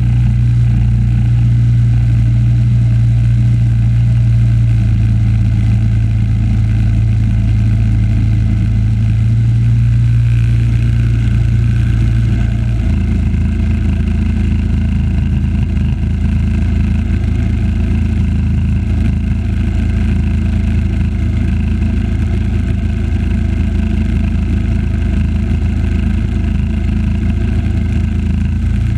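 Engine of a 1976 Simplicity garden tractor running steadily; about thirteen seconds in its note drops lower and turns rougher and holds there.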